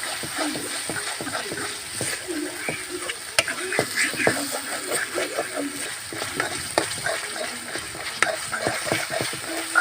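Chicken frying and sizzling in masala in a pan while it is stirred with a spatula: a steady sizzle under irregular scraping, with a few sharp clinks of the spatula against the pan.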